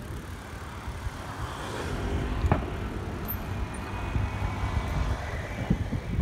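Wind rumbling on the microphone of a phone carried on a moving bicycle, with steady road noise and a sharp click about two and a half seconds in.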